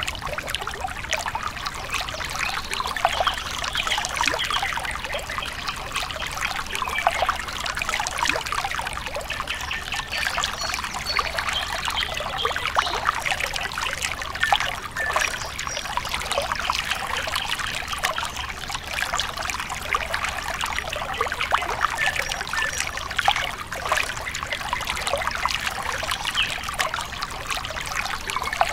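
A thin stream of water trickling and splashing steadily.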